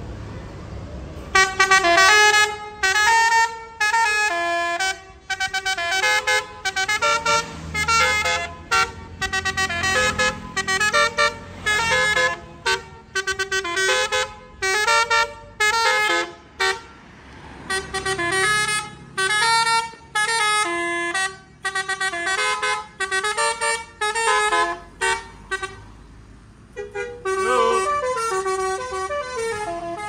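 Multi-tone telolet horn on a bus playing a tune in quick, short notes, with brief breaks about seventeen and twenty-six seconds in.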